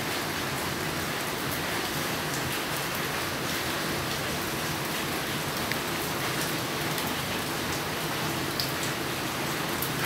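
Steady rain falling, with scattered single drops ticking close by.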